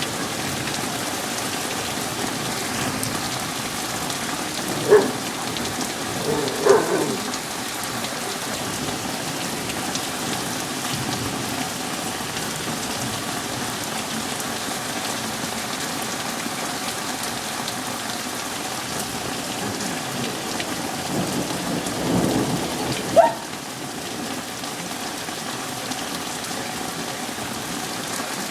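Steady rain pouring during a thunderstorm, with a few short louder sounds about five, seven and twenty-three seconds in.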